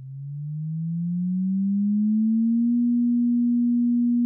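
A single pure electronic tone that fades in and glides upward in pitch over about two and a half seconds, then holds steady.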